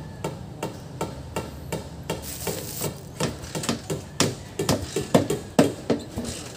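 A series of sharp knocks or taps, about three a second at first, coming faster and louder about four seconds in.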